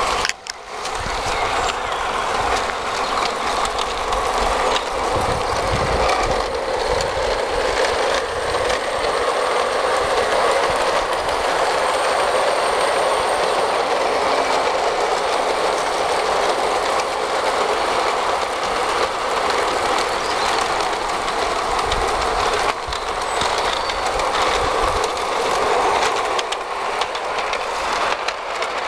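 Tri-ang O gauge model Hymek diesel locomotive with a new 6 V motor, pulling eight coaches: a steady whirr of the motor and the wheels rolling on the track.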